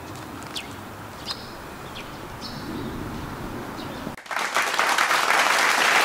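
Birds chirping over low outdoor background noise. About four seconds in, a loud burst of applause starts suddenly and cuts off sharply, greeting a successful drone landing.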